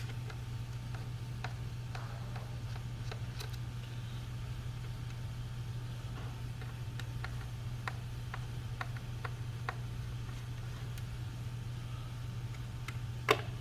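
Scattered faint clicks and ticks of a Phillips screwdriver backing small screws out of a LabQuest 3 data logger, with one sharper click near the end, over a steady low hum.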